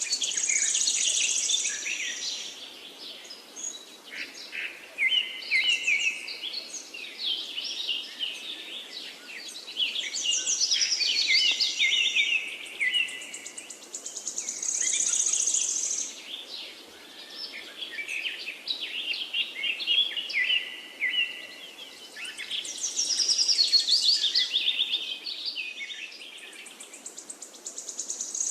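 Birds singing outdoors, several overlapping songs of high chirps and fast trills that swell and fade every few seconds.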